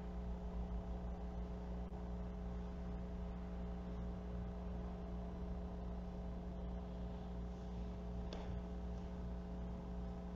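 Room tone: a steady hum made of several fixed tones over a faint hiss, with one faint click about eight seconds in.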